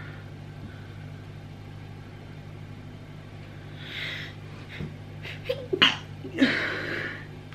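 A woman sneezes into the shoulder of her shirt about six seconds in, after a short sharp breath.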